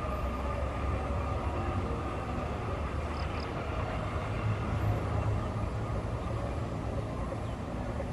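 Freight train rolling past, a steady low rumble of its wagons on the rails that swells a little about halfway through.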